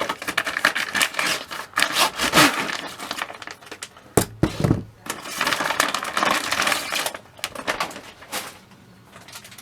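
Package being ripped and torn open by hand, with repeated scraping and rustling of the packaging. Two sharp knocks come about four seconds in, and it grows quieter near the end.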